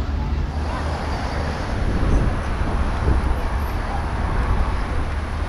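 Steady vehicle noise with a strong low rumble, like trucks running, and a thin faint high whine from about half a second in.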